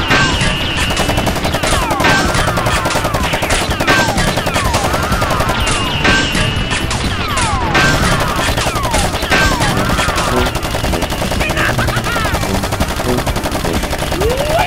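Rapid automatic gunfire sound effects: a dense rattle of shots with falling whizzing sounds that repeat about every two seconds, laid over a toy blaster fight.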